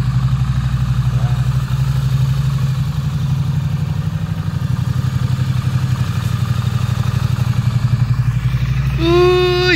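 Triumph parallel-twin motorcycle engine idling steadily with an even, low pulse. Near the end a short, held pitched sound cuts in briefly over it.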